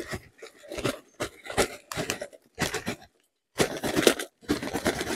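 Pressed charcoal briquettes being handled and dropped into a small portable grill: repeated bursts of clattering and scraping with short pauses between them.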